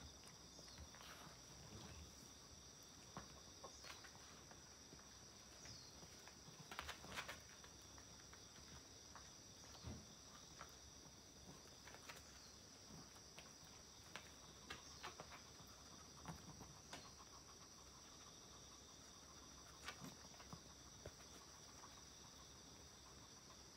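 Chihuahua sniffing rapidly through a felt snuffle mat for hidden kibble: faint, irregular runs of short snuffs and small clicks, over a steady thin high tone.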